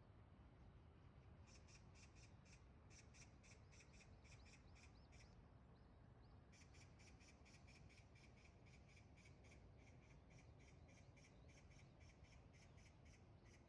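Faint magpie chatter: two bouts of rapid, harsh rattling calls at about five a second, with a short pause between them.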